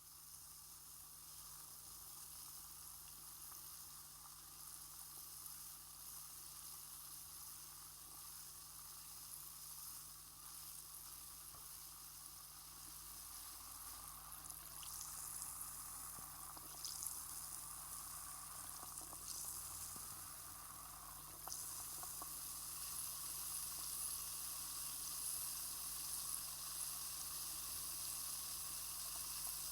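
Effervescent aspirin tablet fizzing in a glass of water, a steady hiss of tiny bubbles that grows louder as the tablet dissolves, stepping up about two-thirds of the way through.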